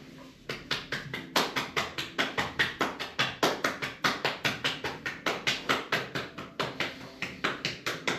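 Hands striking a person's body in rapid percussive massage (tapotement), an even run of sharp slaps at about five a second, starting about half a second in.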